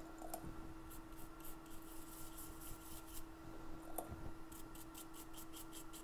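Toothbrush bristles scrubbing thermal paste off an iPhone 8 logic board: faint, short scratching strokes that come in a quick run of about six a second near the end, over a steady low hum.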